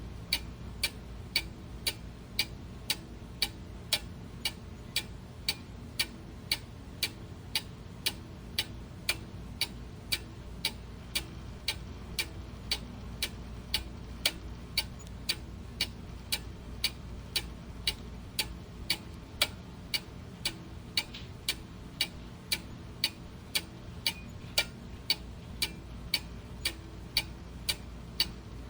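Clock ticking: sharp, evenly spaced ticks a little under two a second over a faint steady low hum.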